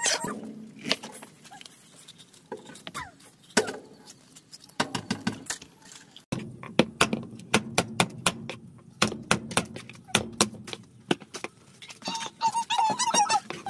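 Kitchen knife chopping garlic on a plastic cutting board: irregular sharp knocks, sparse at first and then several a second from about halfway through. A brief high wavering call sounds near the end.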